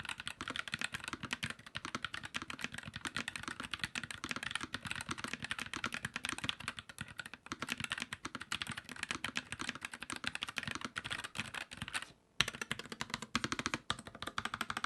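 Typing test on a NuPhy Air75 V2 low-profile wireless mechanical keyboard with PBT double-shot keycaps, Poron plate foam and IXPE switch pads: a fast, continuous run of keystrokes, with a brief pause near the end before the typing picks up again.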